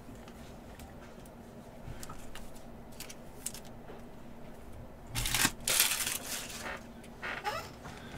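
Faint handling of trading cards, then from about five seconds in a run of loud crinkling and rustling as foil-wrapped card packs are grabbed from a stack.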